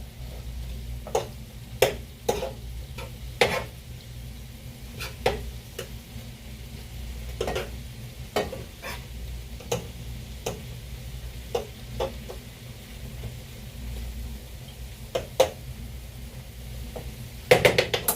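A utensil stirring shaved steak, peppers and onions in a frying pan while the food sizzles. It knocks and scrapes against the pan at irregular intervals over a steady low hum, and a louder clatter comes near the end.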